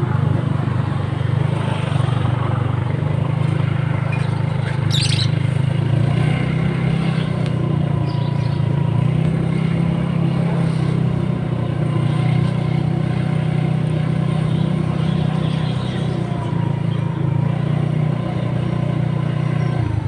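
Motorcycle engine running steadily on the move, a continuous low drone with road and traffic noise around it. A brief high chirp stands out about five seconds in.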